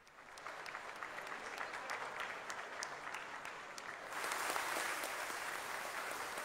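A roomful of people applauding, individual claps audible at first, then the clapping grows louder and fuller about four seconds in.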